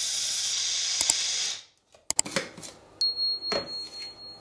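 Small electric blade grinder running steadily while it grinds flaxseed, cutting off about a second and a half in. Then come a few clicks as the grinder is opened and knocks as the ground flaxseed is tapped out of the cup.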